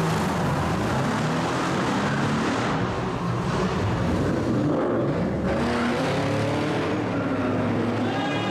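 Several sports car engines running and revving together in a road tunnel, with the pitch rising twice as cars accelerate and then easing off.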